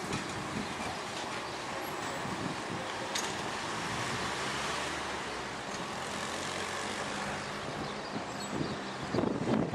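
Steady background noise of distant city traffic, with a louder rumble of wind on the microphone near the end.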